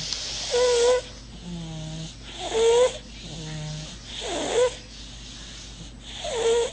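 Rhythmic snoring in sleep: a low drone alternates with a louder, high-pitched whistling wheeze, about once every two seconds, four whistles in all.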